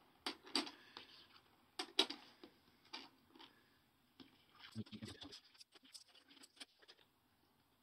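500-yen coins clinking against one another as they are picked up and stacked into piles on a wooden table: faint, separate clicks, with a quicker run of small clicks in the second half.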